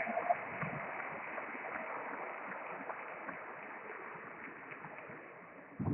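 Steady background noise of a large hall, with a few faint, scattered clicks of table tennis balls.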